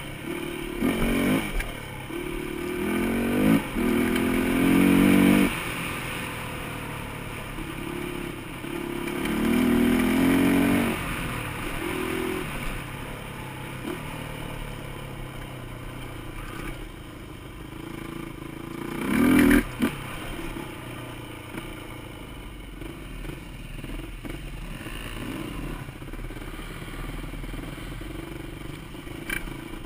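Yamaha dirt bike engine, heard from the rider's helmet camera, running under way over a rough dirt trail and revving up in several throttle bursts, the loudest about four to five seconds in and again about twenty seconds in.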